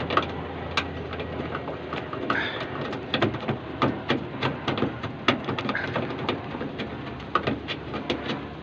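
Irregular clicks, taps and knocks of bolts and small metal parts being handled and fitted while a tailgate latch is bolted back into a van door.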